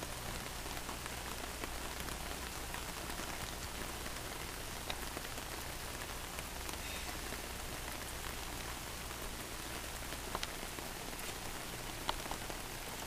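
Steady rain falling on wet pavement, an even hiss with a few sharper ticks scattered through it.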